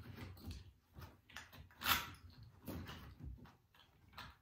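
Light handling noises of wooden picture-frame pieces on a workbench: small scattered knocks and clicks, with one short, louder scrape about two seconds in.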